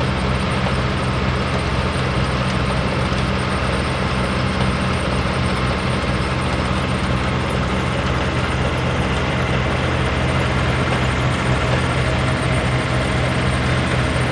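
An engine running steadily at a constant speed, with a deep, even hum.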